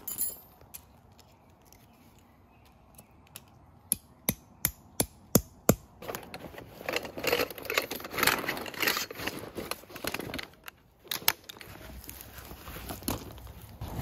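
A metal peg hammer strikes a tent stake into crushed-stone gravel: about seven sharp taps in under two seconds, growing louder. After that come rustling and the clatter of metal poles being handled in a fabric bag.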